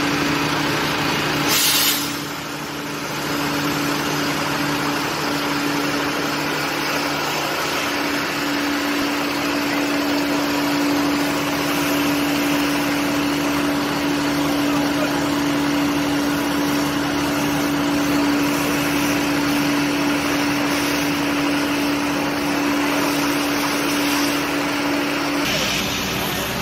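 Water tanker truck's engine running steadily with a constant hum, under a wide hiss. There is a brief loud burst of hiss about two seconds in.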